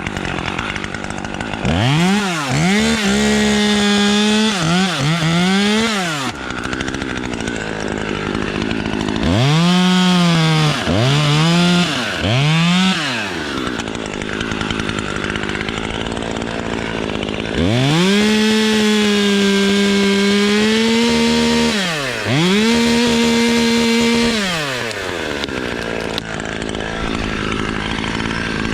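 Two-stroke chainsaw revving to full throttle about seven times, each burst held for one to four seconds, dropping back to idle in between: short cuts through pine branches.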